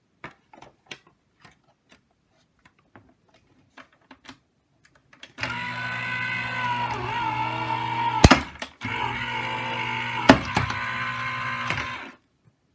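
Sizzix Vagabond electric die-cutting machine: a few light clicks, then about five seconds in its motor starts and runs steadily, pulling the die and cutting-plate stack through its rollers. There is a sharp click and a brief stop about halfway through, another click, and the motor stops shortly before the end.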